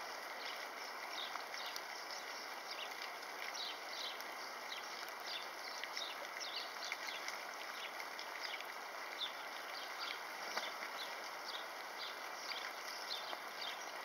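Wet winter outdoor ambience: a steady soft hiss, with many short, high chirps and ticks scattered irregularly throughout.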